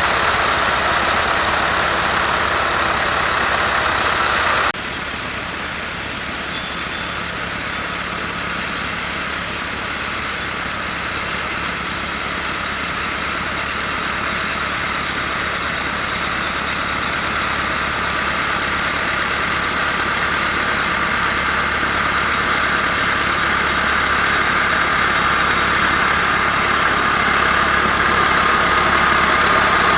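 Massey Ferguson 390 tractor's four-cylinder diesel engine running steadily while ploughing. About five seconds in the sound drops abruptly, then grows gradually louder toward the end.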